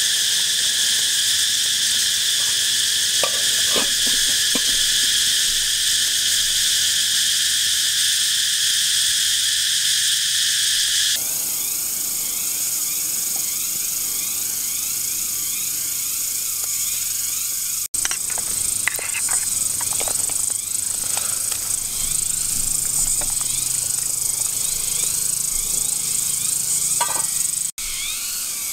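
Steady, high buzzing chorus of forest insects. About a third of the way in it changes to a different repeating chirping pattern, with a few light knocks scattered through.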